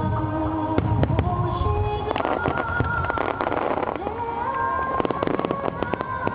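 Phoenix fireworks display: deep booming bursts for the first couple of seconds, then a dense crackle of many sharp pops, with music of long held notes playing under it.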